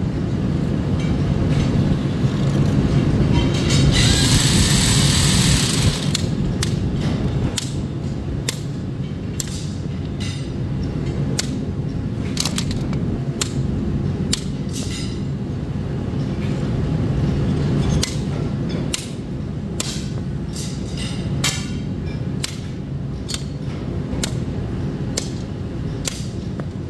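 Workshop machinery running with a steady low hum, with irregular sharp metal clanks and knocks roughly once a second and a hissing rush lasting about two seconds, some four seconds in.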